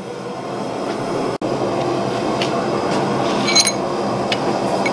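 Forge running with a steady rushing roar, with a few light metallic clinks, one ringing briefly about three and a half seconds in.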